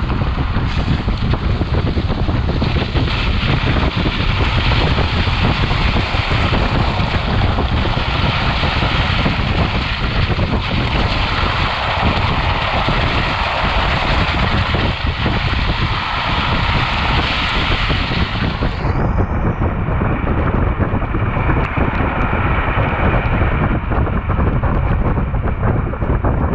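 Steady loud rushing of wind on the microphone and tyre rumble from a wheel-mounted camera on a Jeep driving off-road in snow. The hiss grows duller about 19 seconds in.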